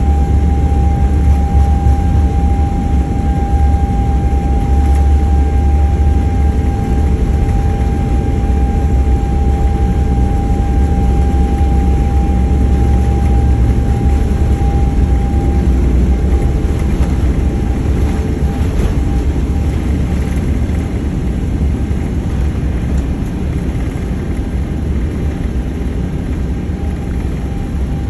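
Boeing 777-300ER's GE90 jet engines at takeoff power: a heavy, steady low rumble with a thin whining tone over it that fades out about halfway through, the whole sound easing slightly toward the end.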